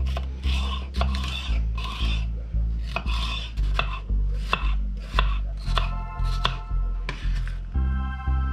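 Kitchen knife chopping red bell pepper on a wooden cutting board, a quick series of sharp cuts, over background music with a steady beat and bass line.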